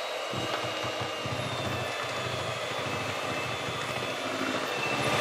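Bosch electric hand mixer running steadily, its beaters whisking chocolate cake batter in a bowl.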